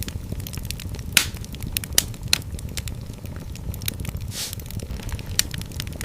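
Wood fire crackling in a fireplace: sharp pops and ticks over a steady low sound of the flames. The loudest pops come about a second in and at two seconds, with a short hiss about four and a half seconds in.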